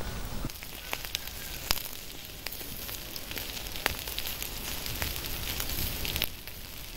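Skewered chunks of meat sizzling over hot charcoal: a steady hiss with sharp crackles and pops as fat drips onto the coals. The sizzling drops away shortly before the end.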